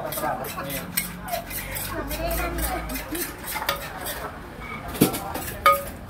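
Metal spoons scraping and clinking against a large earthenware som tam mortar and steel seasoning pots as ingredients are scooped in, with two sharp ringing clinks near the end.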